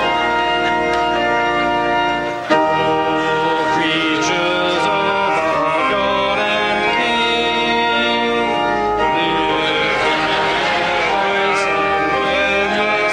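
Organ playing long held chords, with voices singing along in places. A new chord comes in sharply about two and a half seconds in.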